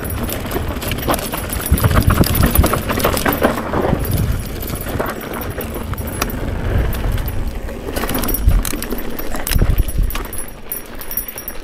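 Mountain bike descending a dirt singletrack: tyres crunching over the rough trail and the bike rattling over bumps in a stream of small clicks, with wind rumbling on the camera microphone.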